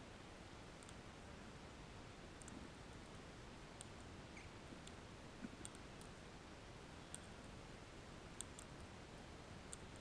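Faint, sharp clicks at irregular spacing, about one a second, over a quiet hiss: crimson rosellas cracking sunflower seeds in their beaks.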